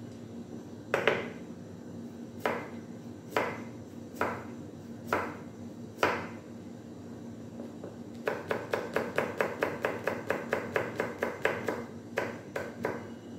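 Chef's knife cutting a carrot on a plastic cutting board: about six separate knife strikes roughly a second apart, then a fast run of chops, about seven a second, for several seconds, and two last cuts near the end.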